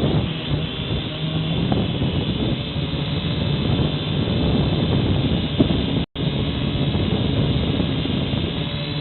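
Syma X5HW quadcopter's four small motors and propellers running steadily in flight, heard through the low-fidelity microphone of the camera it carries; the sound drops out for an instant about six seconds in.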